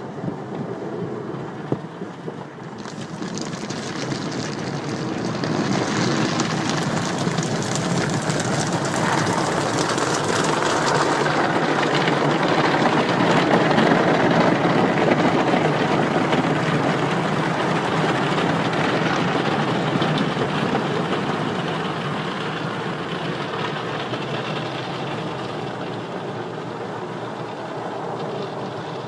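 Car wash running: a steady rush of spray and machinery noise that starts about three seconds in, builds to its loudest around the middle, then slowly eases.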